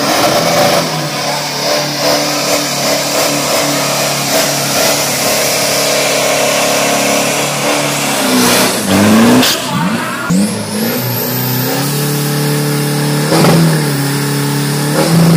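Drag-racing pickup truck's engine running loud and steady, revved up in short swells about halfway through and again near the end, with one high rising whine after the middle revs.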